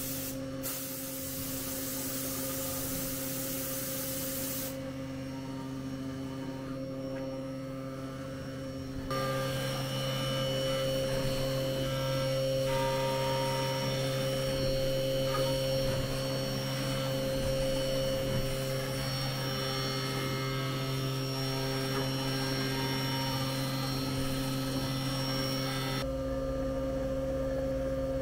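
CNC vertical milling machine at work: a loud spraying hiss for the first few seconds, then the spindle's steady hum and whine as the end mill cuts a metal block under flood coolant, louder from about a third of the way in.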